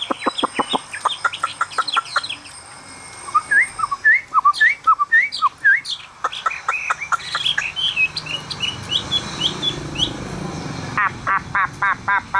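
Chinese hwamei (họa mi) singing in its cage. The varied song runs from quick runs of repeated notes into rising slurred whistles, then higher notes, and ends in a fast trill.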